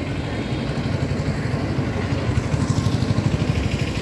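Road traffic with a motor vehicle engine running close by, a low throb that pulses more strongly in the second half.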